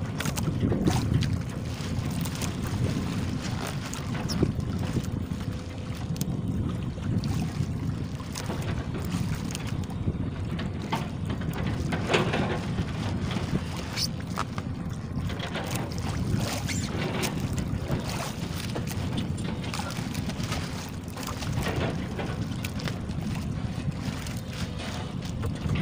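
Wind rumbling on the microphone, with intermittent crinkling of a plastic bag being handled as fish are packed into it.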